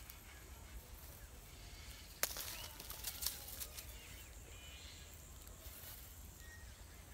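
Outdoor ambience: a steady low rumble of wind on the microphone, with a few sharp clicks and rustles about two and three seconds in as a freshly hooked small fish is handled on dry leaves.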